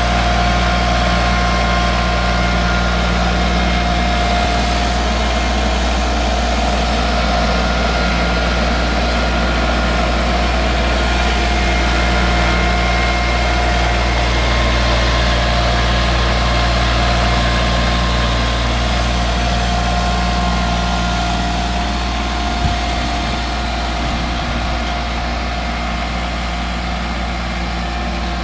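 New Holland TC30 compact tractor's three-cylinder diesel engine running steadily at low speed while it pulls a loaded wooden trailer, with a single clunk about three quarters of the way through. It fades a little near the end as the tractor moves away.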